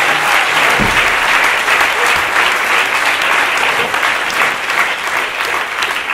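Audience applauding, the clapping slowly thinning out into separate claps toward the end. A low thud about a second in.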